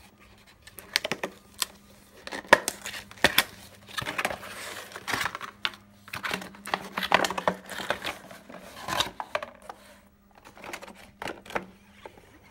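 Product packaging being opened and handled by hand: scattered clicks and knocks with rustling and crinkling, heaviest about four seconds in and again from about six to nine seconds.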